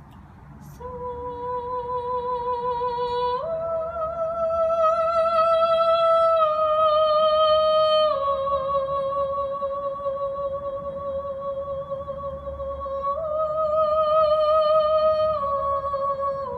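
Background music: a slow melody of long held notes with vibrato, stepping between a few pitches.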